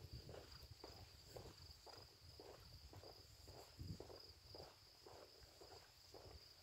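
Faint footsteps walking at a steady pace, about two steps a second, over a steady high chirring of night insects.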